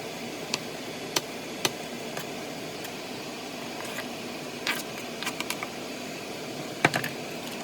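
A knife chopping vegetables on a cutting board: a dozen or so sharp, irregular taps, the loudest near the end, over a steady hiss.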